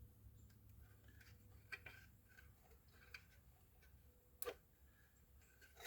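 Faint, scattered clicks and taps of small plastic parts being handled while a solar light's opened housing and wired-in battery are examined, the sharpest click about four and a half seconds in.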